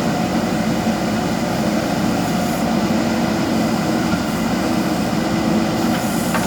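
JCB backhoe loader's diesel engine running steadily at working revs.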